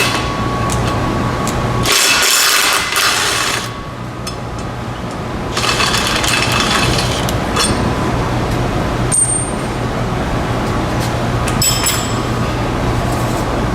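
Impact wrench run in two bursts, about two seconds in and about six seconds in, on the Pontiac G8's driveshaft bolts, with sharp metallic clinks of bolts and sockets between them.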